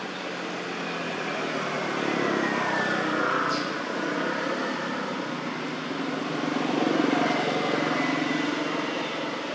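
Motor vehicles passing on a nearby road, a steady noise that swells twice: about two seconds in and again around seven seconds.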